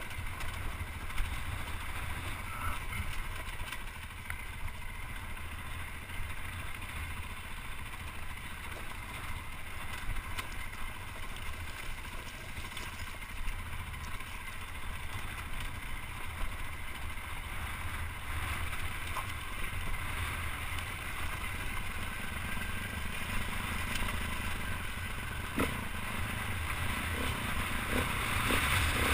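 Off-road motorcycle engine running at trail speed, heard through a helmet-mounted microphone with wind buffeting it; it gets louder near the end.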